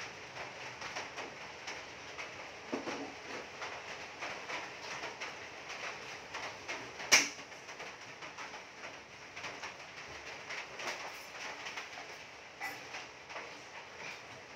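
Heavy rain pouring down, a steady hiss thick with close drips and patters, with one sharp knock about halfway through.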